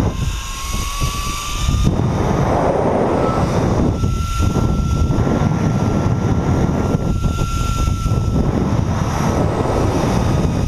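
Zip-line trolley pulleys running along the steel cable, giving a thin whine that climbs in pitch over the first couple of seconds, holds steady, then fades near the end, under heavy wind rushing over the microphone at speed.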